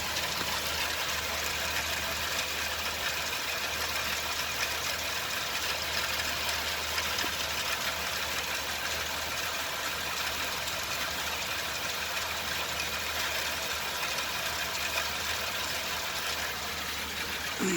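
Dodge Grand Caravan's 3.3-litre V6 idling steadily with the serpentine drive belt removed, free of the hissing and chirping that the belt was causing. A brief falling sound comes right at the end.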